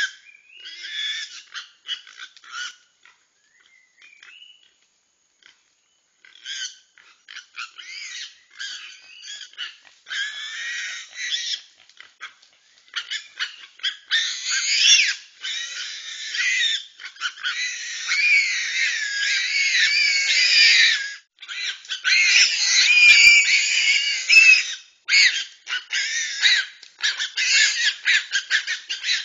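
Babirusas squealing and grunting, in scattered calls at first, then near-continuous overlapping squeals from about halfway in, heard thin and without bass through a trail camera's small microphone. The calls come from babirusas fighting a reticulated python.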